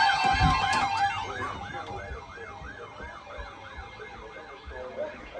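Emergency vehicle siren in a fast yelp, about three rises and falls a second, fading steadily as it moves away. A sharp click comes right at the end.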